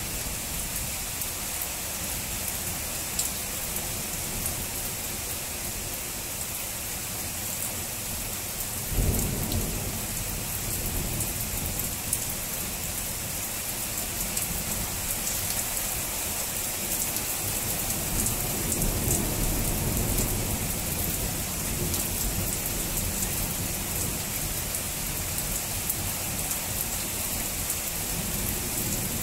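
Heavy rain falling steadily, with the fine ticking of drops on nearby surfaces. Thunder comes in with a sudden low crack about nine seconds in, and a longer rumble swells and fades a little past the middle.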